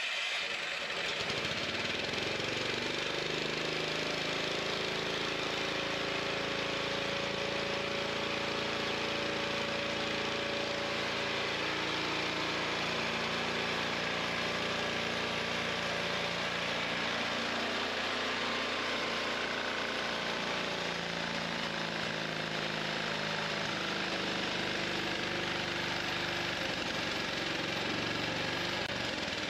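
Engine fed by a Thunderstorm Generator plasmoid fuel processor running steadily with its valve opened right up.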